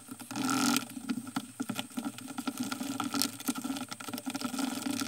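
Wooden stick stirring wet plaster in a plastic bucket: irregular clicks and scrapes of the stick against the bucket wall, with a soft wet churning of the runny mix.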